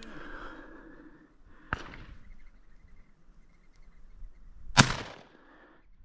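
A shotgun shot about five seconds in, sharp with a short tail. It follows a fainter sharp crack about two seconds in.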